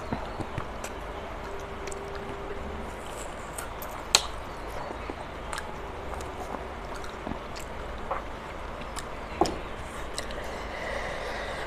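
Close-miked eating sounds of chewing and sucking on a piece of curried chicken on the bone, with wet mouth clicks and smacks. A sharp click comes about four seconds in and another about nine seconds in.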